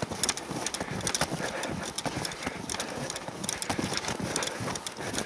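Footsteps crunching through snow in a steady walking rhythm.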